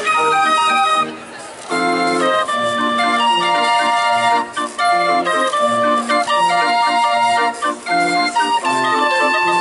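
A hand-cranked street barrel organ, its pipes playing a tune with a steady pulse of bass notes. The music breaks off briefly about a second in, then carries on.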